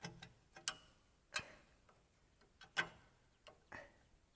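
A few faint, scattered metal clicks and taps of hand tools working at the rear parking brake shoe springs and hardware of a 2007 Ford Expedition.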